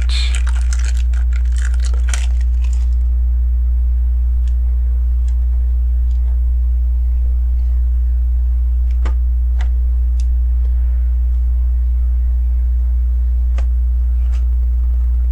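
Steady low electrical hum throughout. Over it, plastic LEGO pieces rustle as they are handled for about the first two seconds, then come a few scattered small clicks as pieces are picked up and pressed into place.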